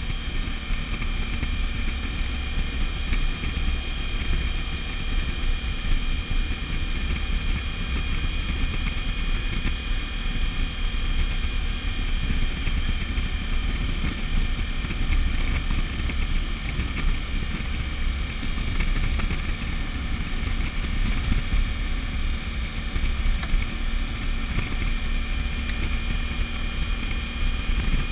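Steady wind rush over the microphone of a Suzuki V-Strom DL1000 cruising at a constant speed, under the even drone of its V-twin engine.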